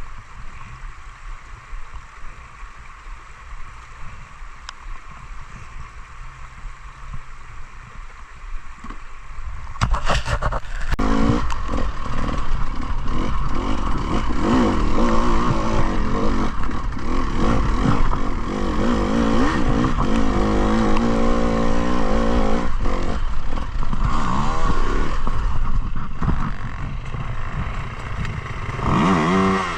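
Enduro motorcycle engine starting up suddenly about ten seconds in, after quieter background noise, then running and revving with its pitch rising and falling, with another rise in revs near the end.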